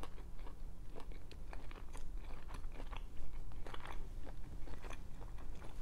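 Close-miked chewing of a toasted mac and cheese grilled cheese sandwich, with irregular crunches of the toasted bread.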